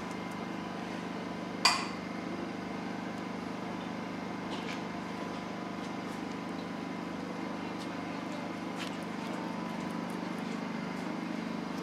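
A steady low hum runs throughout, with one sharp click just under two seconds in and a few faint ticks afterwards.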